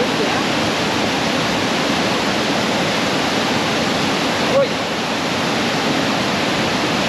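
Waterfall rushing over rocks at close range, a steady, very noisy hiss of white water that fills the whole sound, with one brief blip a little past halfway.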